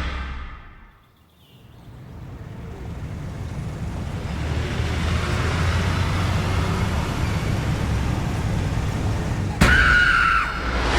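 Steady low background rumble that fades in after a moment of near quiet. Near the end a sudden louder sound with a held tone cuts in briefly.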